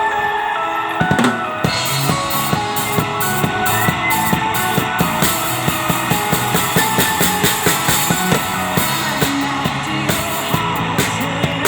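Drum kit played in a steady, driving beat over music with guitar, the drum strokes starting about a second in.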